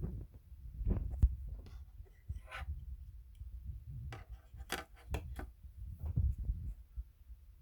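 Synology DS115 network storage unit clicking irregularly over a low hum, a clicking that marks a defect in the unit.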